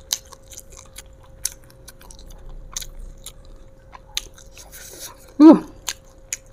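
Close-up mouth sounds of someone chewing crunchy raw lalapan: a run of sharp, crisp crunches and clicks at uneven intervals. About five and a half seconds in comes a brief vocal sound that slides down in pitch, the loudest moment, over a faint steady hum.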